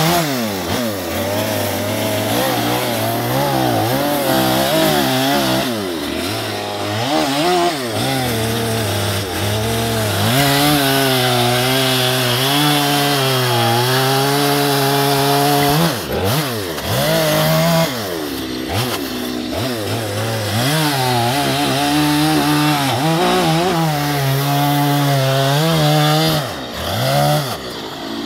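Two-stroke chainsaw cutting into a western red cedar log, its engine pitch sagging under load and climbing back again and again as the bar bites and clears. A few brief dips in level, the last one near the end, where the throttle is let off between cuts.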